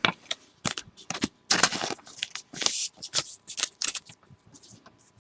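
Trading cards and their packaging handled by hand: a run of short rustles and light clicks, irregular, dying away near the end.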